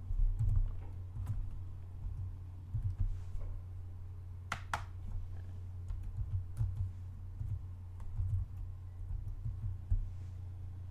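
Computer keyboard keystrokes, irregular and soft, as a password is typed and then typed again to confirm, with one sharper click about halfway through. A steady low electrical hum runs underneath.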